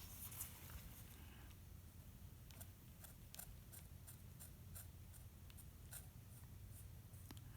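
Near silence: quiet room tone with faint, irregular light clicks of small glass pieces being nudged on the work board.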